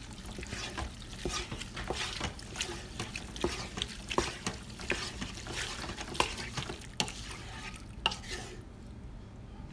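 Wooden spoon stirring cooked ground beef with sour cream and shredded cheese in a black pot: irregular scraping and light knocks of the spoon against the pot, which stop near the end.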